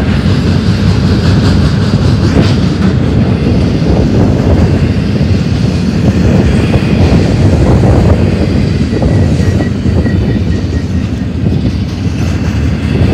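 Double-stack intermodal freight train's well cars rolling past close: a loud, steady rumble and clatter of steel wheels on rail, with a faint high wheel squeal a little past halfway.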